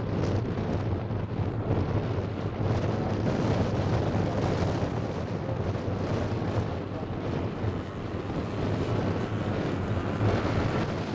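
Four Zenoah 22cc two-stroke petrol engines of a large scale model biplane running steadily in flight as it passes overhead, with wind buffeting the microphone.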